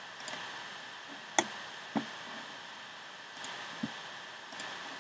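A few sharp clicks at a computer, with the loudest about a second and a half in, another at two seconds and a softer one near four seconds, over a steady hiss.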